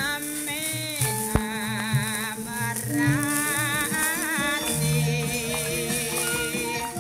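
Background music: a langgam song with a singer's voice wavering in wide vibrato over held instrumental notes.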